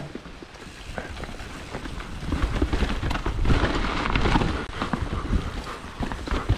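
Full-suspension mountain bike riding down a wet, muddy trail: tyres rolling over sloppy dirt with a rapid clatter of knocks over bumps. A low rumble builds about two seconds in as it picks up speed.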